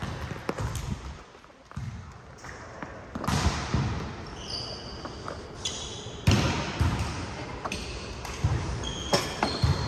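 Indoor volleyball play: several sharp ball hits and thuds spread through the rally, with short high-pitched sneaker squeaks on the court floor between them.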